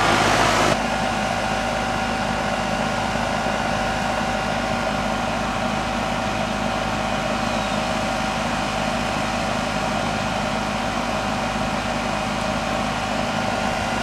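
Goodman outdoor condensing unit running steadily, its compressor and condenser fan giving a constant hum with several steady tones, while it is being checked after a small refrigerant top-up. A louder rushing noise cuts off suddenly less than a second in.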